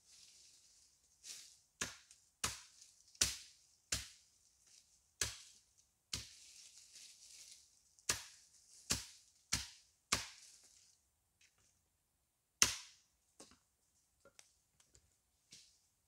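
Hatchet chopping dry twigs and branches on a wooden chopping block: about a dozen sharp strokes, mostly under a second apart, many trailed by a brushy crackle of twigs. After a short pause comes the loudest stroke, then a few light taps.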